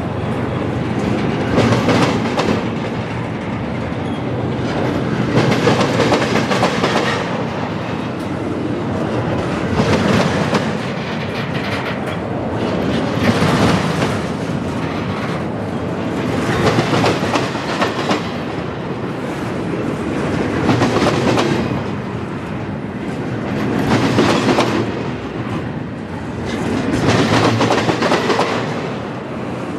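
Norfolk Southern NS 249 double-stack intermodal train rolling past at close range, its steel wheels clicking over the rail joints. The sound swells and fades about every four seconds as each car's wheel sets go by.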